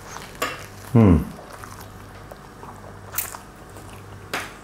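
A man biting into a pita bread stuffed with lamb kebab and salad and chewing it, with a short appreciative "mmm" falling in pitch about a second in and a few sharp mouth clicks and crunches later.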